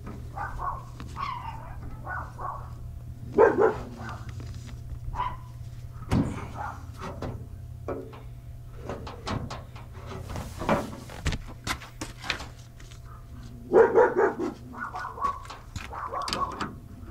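Dogs barking in short bunches, about three seconds in and again near the end. Between the bunches come sharp clicks and knocks of hand-tool work.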